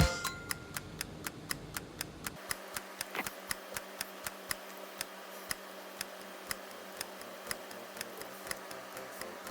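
Steady clock-like ticking, about two ticks a second, over a faint background hum.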